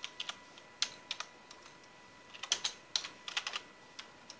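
Typing on a computer keyboard: sharp key clicks in uneven clusters, the busiest run of keystrokes about two and a half to three and a half seconds in.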